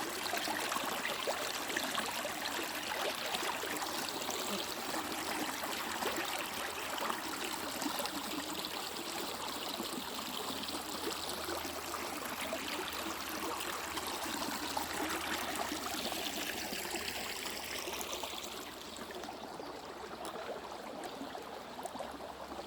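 Stream water running, a steady, gentle rush and trickle that softens a little near the end.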